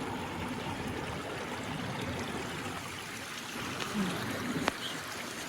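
Shallow stream running over stones, a steady rushing trickle, with a single sharp click about four and a half seconds in.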